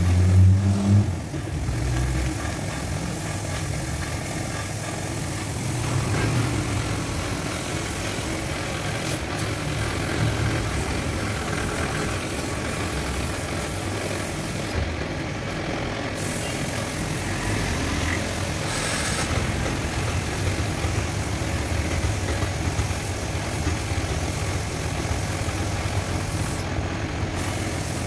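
Compressed-air paint spray gun hissing steadily over a low, steady machine rumble. The hiss stops briefly about halfway through and again near the end as the trigger is let go.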